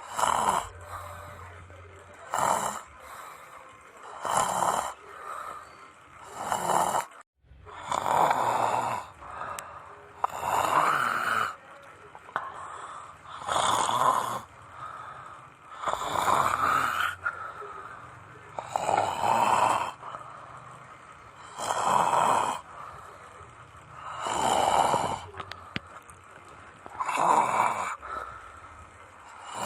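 A person snoring, one snore roughly every two to three seconds in a steady rhythm.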